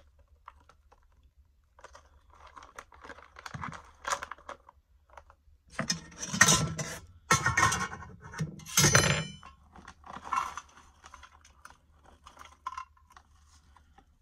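A packet of cheddar cheese pretzels from the ration being handled: rustling and rattling with small clinks, in a few louder bursts about halfway through.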